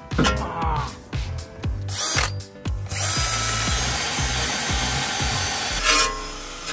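Cordless drill spinning a wire brush against a bare steel wheel hub: a steady, harsh scraping whir from about three seconds in until near the end, cleaning rust off the hub face. Background music with a steady beat runs beneath it and carries the first few seconds.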